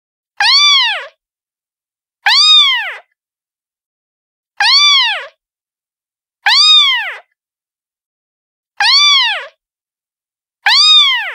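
A cat's meow, one short call that rises then falls in pitch, repeated six times about every two seconds with silence between. The copies are identical, so it is a single meow recording played on a loop.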